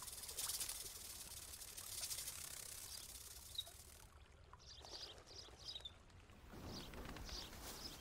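Quiet nature ambience: a soft steady hiss, then from about halfway a few faint, short, high chirps of small birds, with a soft rustle swelling near the end.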